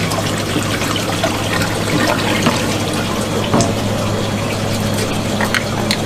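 Water sloshing, running and splashing in a fish holding tank as a pufferfish is scooped out with a wire net, with scattered small splashes and drips over a steady low hum.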